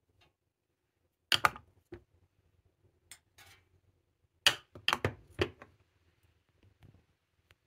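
Glass spice jars being set down and shifted into place on a plastic tiered spice stand, giving sharp knocks and clinks: a pair about a second in, a few faint ones, then a quick cluster of four or five past the middle.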